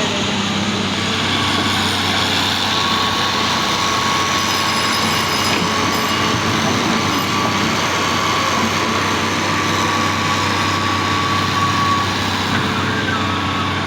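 Heavy construction machinery running steadily, a continuous engine and mechanical din with a thin, steady high whine over it.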